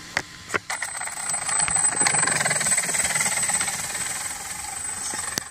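Traxxas Slash electric RC truck on oversized 1/5th-scale monster truck tires driving off: a steady high whine from the motor and gears with tire noise. The sound builds over the first two seconds and eases off near the end. Two sharp clicks come just before it sets off.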